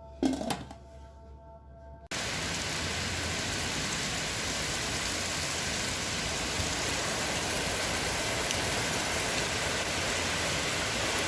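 Two short knocks, then about two seconds in a steady, even rain-like hiss starts abruptly and holds level.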